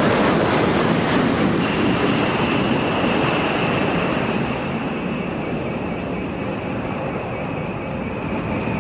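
Space Shuttle Endeavour rolling out on the runway on its main gear after touchdown: a steady rushing roar that gradually fades, with a high steady whine coming in about two seconds in and sinking slightly in pitch.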